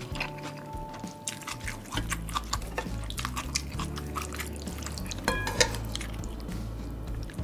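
Close, wet chewing and smacking of a mouthful of pork kimchi stew and rice, full of small clicks, over soft background music. About five seconds in, a spoon clinks once against the bowl, and then it moves wetly through the stew.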